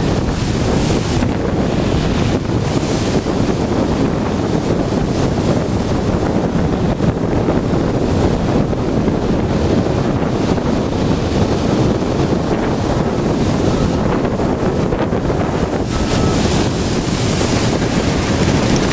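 Storm waves crashing and surging against a seafront groyne, swelling in several surges, with strong wind buffeting the microphone.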